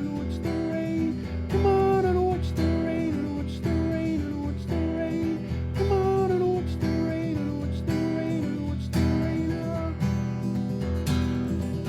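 Acoustic guitar strummed in a steady rhythm, with a higher melody line repeating over the chords.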